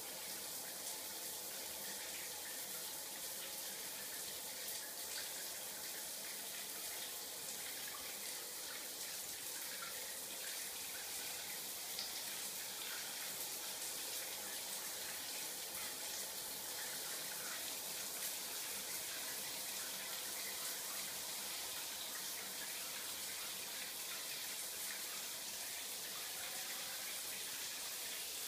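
Steady hiss of running water, even and unbroken.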